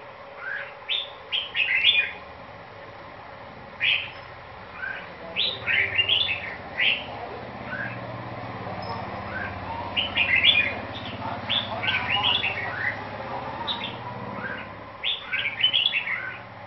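Caged red-whiskered bulbul (chào mào), nearly through its moult, singing in bursts of quick chirping phrases with short pauses between them. A low hum sits underneath through the middle stretch.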